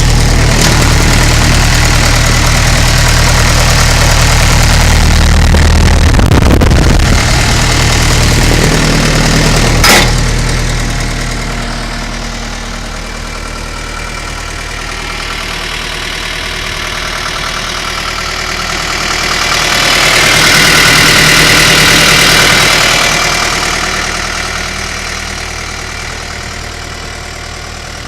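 Case 1845C skid steer's four-cylinder diesel engine running loudly and steadily, with a sharp knock about ten seconds in. The sound then drops, swells up again for a few seconds about two-thirds of the way through, and fades back down.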